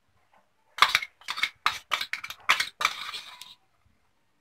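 Steel spoon knocking and scraping against a stainless steel plate while garlic paste is spooned off onto it: a quick, uneven run of about eight clinks over some two and a half seconds, starting about a second in.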